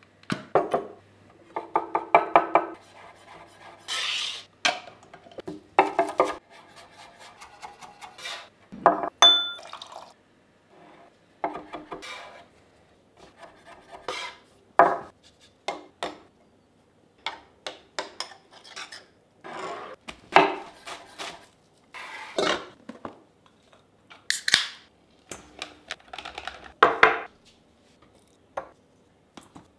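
Kitchen food-prep sounds in quick succession: a jar of pickles being opened, a chef's knife chopping on a wooden cutting board, and clinks and knocks of stainless steel mixing bowls and utensils. The sounds come as separate short knocks and clinks, some in quick runs, with brief pauses between them.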